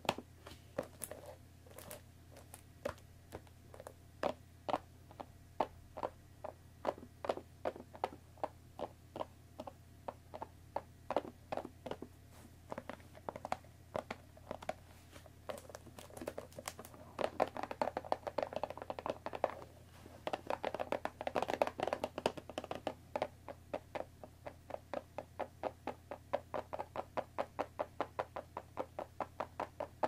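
Long fingernails tapping on a cardboard box of tea bags: a steady run of sharp taps, a few per second, growing faster and louder about halfway through and settling into a quick even rhythm near the end.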